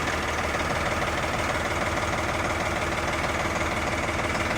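An engine idling steadily with a fast, even low pulse.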